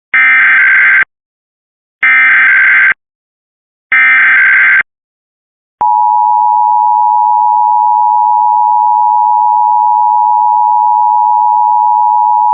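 Emergency Alert System data header: three one-second bursts of coded digital tones, about two seconds apart. About six seconds in, the steady two-tone EAS attention signal starts, announcing an alert, here a Required Monthly Test.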